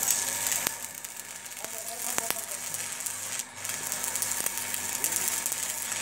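Electric arc welding on steel reinforcing bars: the crackling, sizzling sputter of the welding arc, full of sharp clicks. It drops out briefly a little past halfway.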